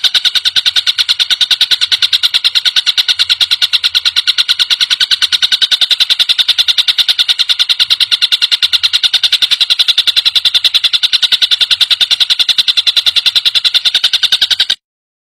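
Tengkek buto kingfisher call used as bird-song training material: a long, fast trill of high, evenly repeated notes, about ten a second, that cuts off suddenly near the end.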